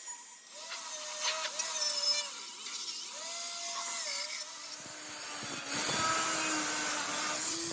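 Hand power tool running and working material: a high whine that wavers as the load changes, with a dense hiss on top. The pitch drops to a lower, steadier tone about five seconds in as the load increases.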